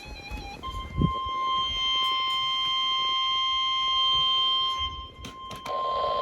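Emergency weather-radio warning alarm tone: one steady, unwavering high tone that starts about half a second in. It drops out briefly near the 5-second mark amid a few clicks, then resumes just before the end. A low thump sounds about a second in.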